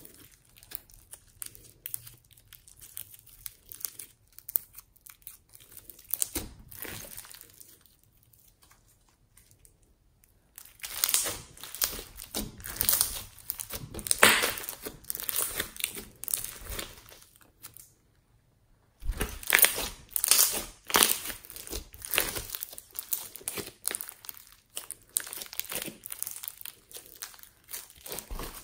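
Foam-bead slime being squeezed, folded and kneaded by hand: irregular crackling and crinkling pops as the beads and slime are worked, with a couple of short pauses.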